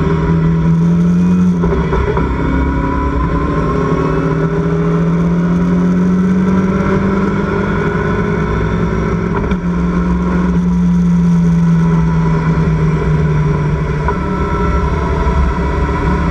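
Engine of a Locost Seven-style club racing car heard from its open cockpit at racing speed, the engine note slowly climbing and falling. The note breaks sharply twice, about two seconds in and near ten seconds, as gears are changed, over a steady rushing noise.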